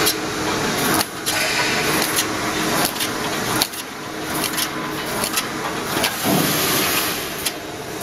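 Automatic wire mesh panel welding machine running: its row of resistance welding heads cycling, a loud continuous mechanical clatter with a repeating stroke roughly every second as each cross wire is welded.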